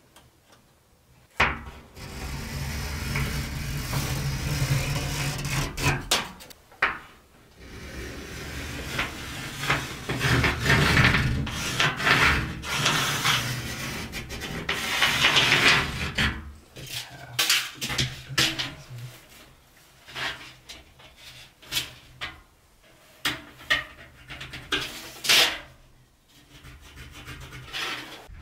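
Rubbing and scraping against the corrugated steel wall of a shipping container as a tape measure and pencil are worked over it. A sharp knock comes about a second and a half in, steady scraping follows until about halfway, and then comes a run of scattered clicks and short scrapes.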